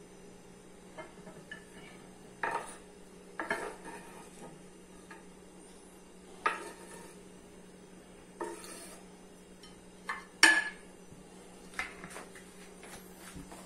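A knife and a glass dish clinking and knocking against a wooden cutting board as diced sausage is scraped into the dish: separate clatters every second or two, the loudest about ten and a half seconds in.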